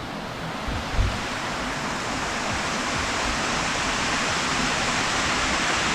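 Rushing water, a steady hiss that slowly grows louder as it comes closer, with a single low thump about a second in.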